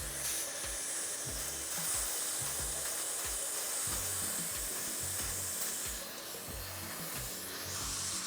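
Steady hiss of dental spray at the tooth, starting just before and stopping just after, over background music with a low, even beat.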